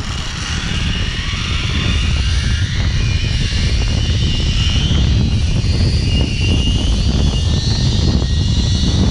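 Zip line trolley pulleys running fast along the steel cable with a steady high whir and hiss, over heavy wind rumbling on the helmet-mounted microphone, growing slowly louder as the rider gathers speed.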